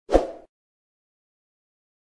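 A single short pop sound effect from a YouTube subscribe-button animation, lasting under half a second and dying away quickly.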